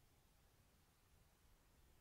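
Near silence: only a faint, even hiss of the recording's noise floor.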